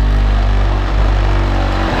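Music with a deep, heavy bass line played loud through an Alphard Machete MS-15D4 15-inch dual-voice-coil subwoofer in a sealed 70-litre box, driven by a Calcell monoblock amplifier at 2 ohms.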